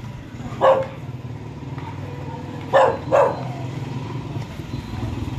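A dog barks three short times over a steady low hum.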